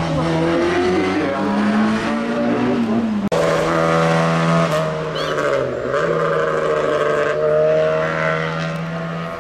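Racing car engines at hillclimb pace: one engine's pitch climbs as the car accelerates. About three seconds in an abrupt cut switches to another engine held at steady high revs, with a brief dip in pitch partway through.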